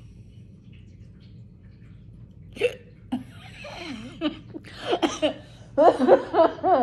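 A woman hiccuping: a sharp hiccup about two and a half seconds in, then a run of short voiced catches and breaths that get louder toward the end.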